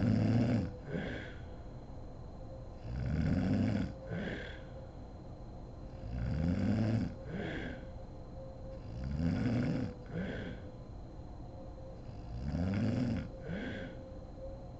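A sleeping woman snoring loudly in a steady rhythm, one snore about every three seconds, five in all. Each snore rises in pitch and is followed a moment later by a shorter, fainter second burst.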